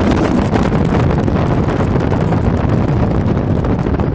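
Loud wind buffeting the microphone aboard a speeding jet boat, over the boat's engine and water rushing past the hull.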